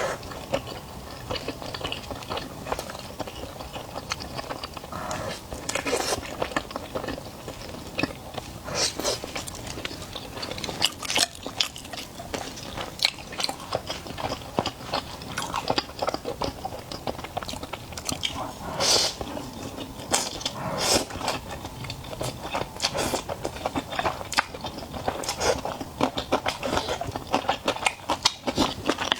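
Close-miked eating sounds: a person biting and chewing food, with many short, irregular clicks and smacks running through the whole stretch.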